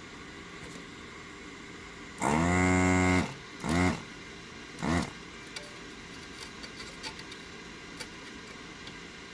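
Small electric motor-driven tool triggered in short bursts: it runs for about a second, then two brief blips, each winding down in pitch as it stops, followed by a few light clicks of handling.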